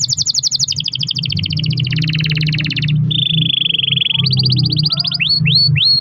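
Domestic canary singing a long rolling song: rapid trills of repeated notes that change pitch and speed every second or so, a lower buzzing roll in the middle, and three quick upswept notes near the end.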